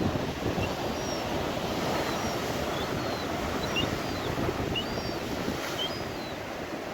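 Rough sea surf and gusting wind on the microphone make a steady loud rush, with repeated short thin high calls from young gulls crying for food, about two a second.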